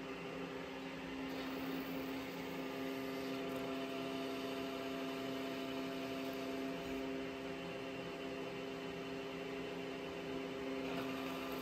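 Metal lathe running, its four-jaw chuck spinning as a tool turns down the outside diameter of a Subaru 4EAT transmission top shaft: a steady hum with several fixed tones over a light hiss.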